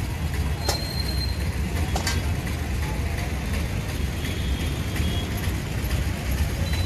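Steady rumble of road traffic going by, with two short sharp clicks about one and two seconds in.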